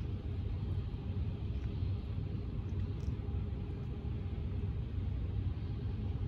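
Steady low outdoor rumble with no distinct event; the crossing is quiet, with no bells or train.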